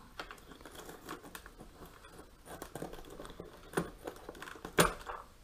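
Front differential assembly of a Traxxas X-Maxx RC truck being worked loose by hand: faint rustling and scraping of the parts, with two sharper clicks about a second apart near the end.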